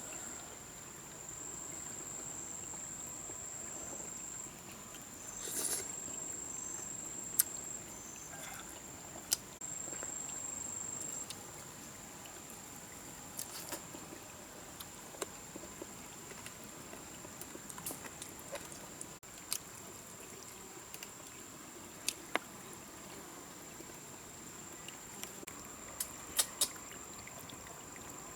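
Forest ambience: a steady high-pitched insect drone that swells and eases a few times, over a faint trickle of water, with scattered sharp clicks and knocks.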